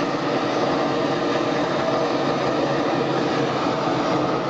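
Homebuilt propane-fuelled jet engine running steadily: a loud, even rushing noise with no change in pitch or level.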